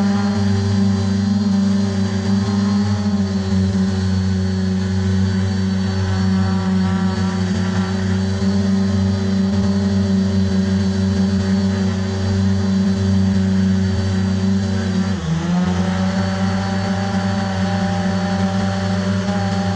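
Brushless motors and propellers of a ZLRC SG906 Pro quadcopter humming steadily in flight, heard close up from a GoPro mounted on the drone. About fifteen seconds in the pitch dips briefly, then rises back to where it was.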